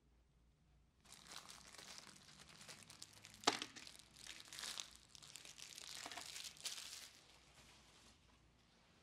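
Crinkly rustling and crackling, like something being handled or crumpled, with a sharp click about three and a half seconds in. It fades out near the end.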